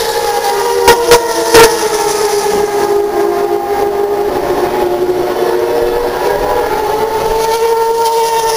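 Turismo Carretera race car engines running at high revs, a steady high-pitched drone that slowly rises and falls in pitch. There are three sharp pops about a second in.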